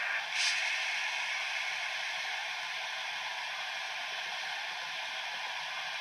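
Sound decoder of a HO-scale KATO EF510 electric locomotive model playing a steady hiss through its small speaker while the model stands still, with a brief, sharper hiss about half a second in.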